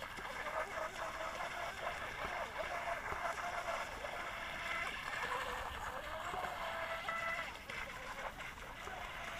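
Small water-cooled brushless inrunner motor of an RC speed boat whining as the boat runs across the water. The pitch of the whine shifts with the throttle, gliding upward about six seconds in.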